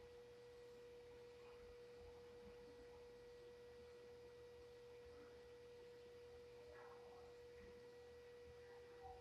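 Near silence with a faint, steady single-pitched hum that does not change.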